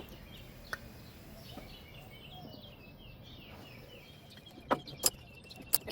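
Birds chirping, a quick run of short falling chirps in the middle, with a few sharp clicks and taps near the end from hand work in the engine bay.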